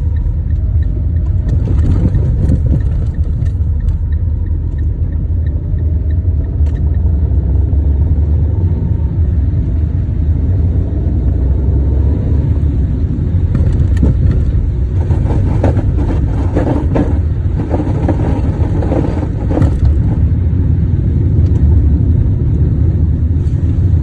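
A Fiat Linea's engine running with a steady low rumble, recorded for the strange knock the owner hears in it. A faint rising tone comes in around the middle, and a run of short sharp clicks follows in the second half.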